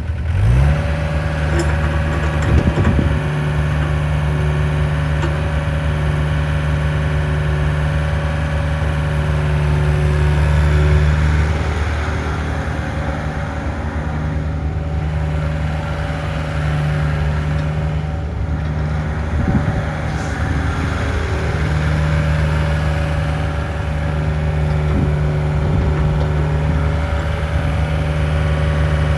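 Diesel engine of a Volvo EC55B Pro midi excavator starting, its pitch rising quickly as it catches, then running steadily, with a few brief knocks.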